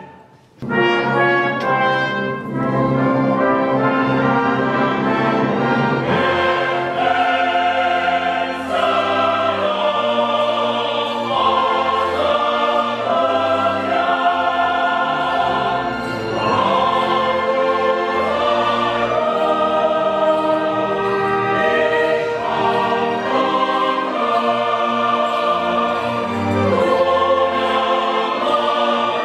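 Operatic mixed chorus singing full-voiced with orchestra. It enters with a sudden loud attack just after a momentary break at the very start.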